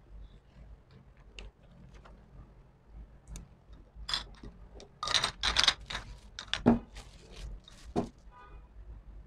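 Glass jars being handled on a wooden table: light knocks and clinks, with a loud stretch of crinkling from a clear plastic sheet being spread and smoothed under them in the middle.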